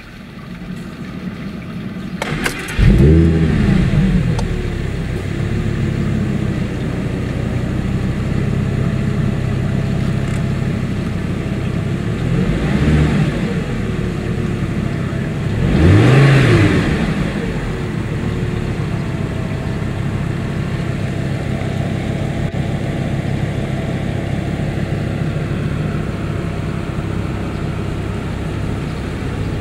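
Audi R8's 5.2-litre V10 started, heard from inside the cabin: a click about two seconds in, then the engine catches with a sharp rev flare and settles into a steady idle. It is revved twice briefly near the middle, the second blip louder.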